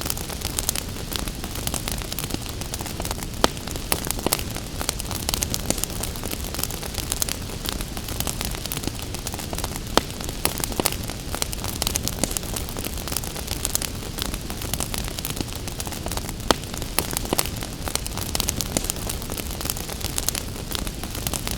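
Wood fire crackling with a constant run of small pops and a few louder snaps, over a steady hiss of rain.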